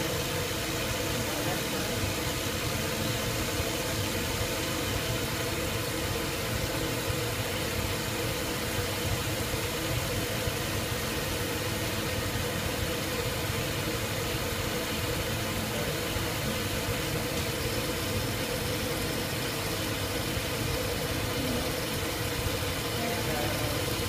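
A motor-driven machine, likely part of a water-pipe test rig, running steadily with a constant mid-pitched hum and hiss.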